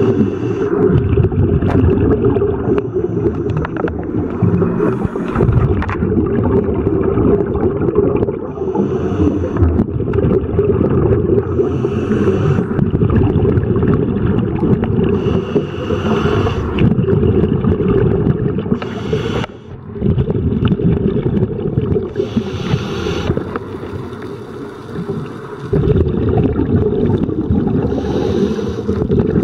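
Muffled underwater noise through a camera housing: a steady low rumble, with the diver's scuba breathing, a hiss and bubbles returning roughly every three to four seconds.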